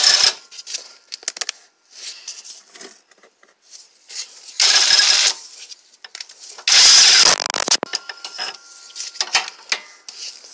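Impact wrench on a long extension running in short bursts of under a second each, loosening the 16 mm bolts that hold the CV axle's carrier bearing, with small metal clicks and clinks of socket and extension between bursts.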